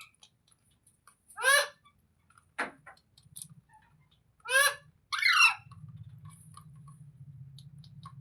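Rose-ringed parakeet giving four short, harsh squawks spread over several seconds, the last two close together. A faint low hum comes in after the last squawk.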